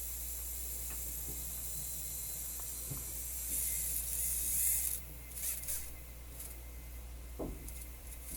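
Rubbing and scraping from the cassette deck's front-panel planetary gear drive being worked, over a steady hiss and low hum. A brighter rasp runs from about three and a half seconds in, then come a few short scrapes and small clicks, one stronger stroke near the end.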